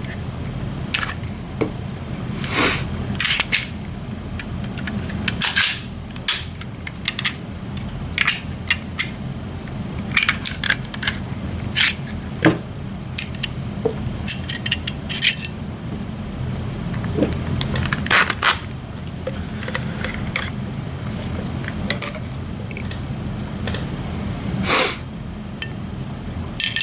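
Metal parts of a Glock pistol being handled: irregular sharp clicks, clacks and light scrapes, some with a brief metallic ring, as the slide and the 10mm conversion barrel are taken apart and fitted.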